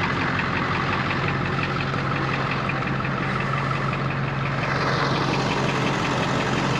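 A vehicle engine idling steadily, with a fast, even light ticking over the low hum.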